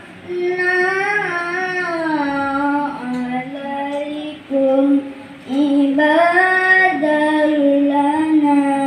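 A boy reciting the Quran in the melodic tilawah style, holding long notes that glide up and down in ornamented phrases, with short breaths between them.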